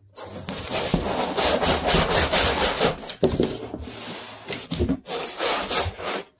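Cardboard and packing material rubbing and scraping in repeated strokes as a boxed desktop computer is handled and unpacked.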